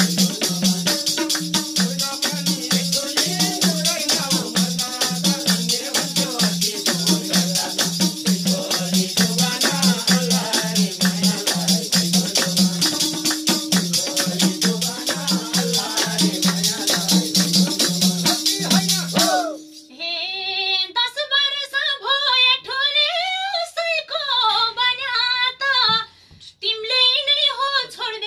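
Live Nepali dohori folk music: a madal hand drum beating a steady rhythm, a tambourine jingling and hand claps under group singing. About two-thirds of the way through the drum and tambourine stop suddenly and a woman sings on alone, unaccompanied.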